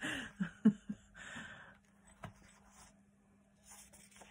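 A woman's laugh trailing off in two short breathy chuckles and an exhale during the first second. Soft paper rustling follows as a page of a handmade paper journal is handled and turned.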